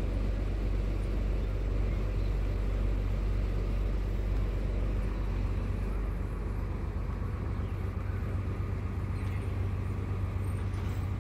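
Mercedes-Benz OH1521 bus's turbocharged, intercooled diesel engine idling with a steady, deep hum.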